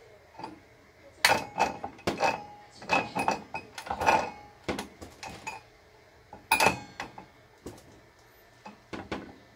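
Metallic clicks and clinks from handling a Ryobi 18V ONE+ HP brushless circular saw, its spring-loaded lower blade guard being pushed back and let go around the freshly fitted blade. The strikes come in an irregular string, several leaving a short metallic ring; the loudest come about a second in and again past the middle.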